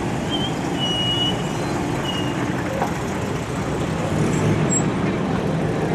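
Classic car engines running at low speed as the cars roll slowly past, a steady low rumble that swells a little from about four seconds in as the next car approaches.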